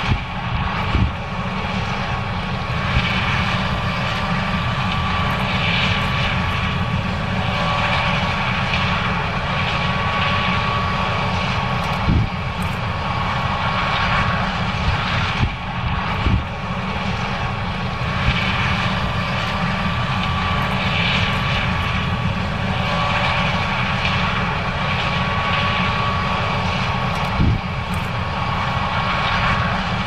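A John Deere S670 combine running under load as it harvests corn: a steady engine drone and machine hum with a constant high whine. A few short thumps stand out, about a second in, near the middle and near the end.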